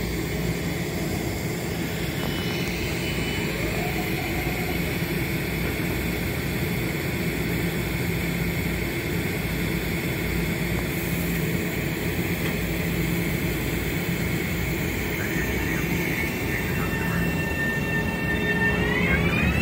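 Metro-North M7A electric multiple-unit train humming and rumbling steadily as it moves slowly along the platform. Near the end a whine from its traction motors rises in pitch in several tones at once as the train picks up speed.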